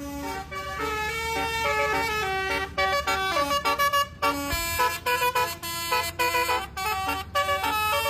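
Bus telolet horn of the Basuri type, a multi-tone air horn, playing a melody with several notes sounding together and stepping from pitch to pitch. About three seconds in, it switches to short, rapid blasts.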